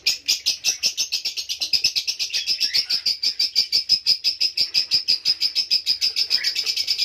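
Budgerigar chicks in the nest box cheeping rapidly and evenly, about eight short high chirps a second without a pause: the rhythmic begging call of nestlings wanting to be fed.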